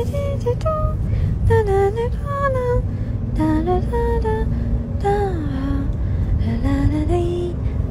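A wordless hummed melody moving from note to note with small glides, over a low, steady backing.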